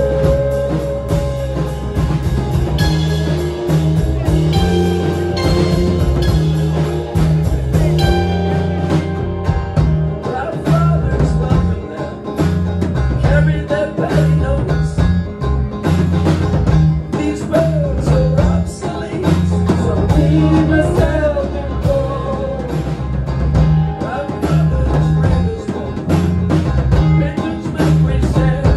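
Live band music: drum kit, bass and electric guitar with banjo playing a driving beat, and a man singing in places.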